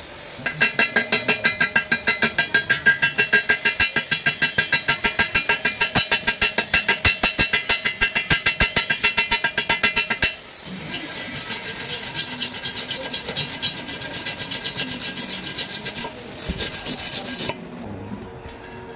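Wire brush scrubbing slag off a fresh E6013 stick weld on steel tube in rapid, even back-and-forth strokes that make the tube ring. About ten seconds in the strokes turn softer and lighter, and they stop about a second and a half before the end.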